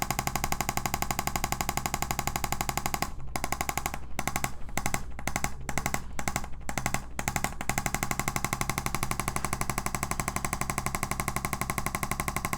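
ArthroStim electric chiropractic adjusting instrument firing a rapid, even train of taps into the cervicothoracic junction to loosen tightness there. The tapping breaks off briefly several times between about three and seven and a half seconds in, then runs on steadily.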